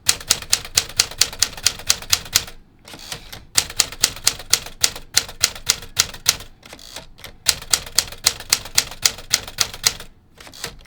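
1954 Smith Corona Silent Super manual typewriter being typed on: quick runs of key strikes, about six a second, broken by two short pauses.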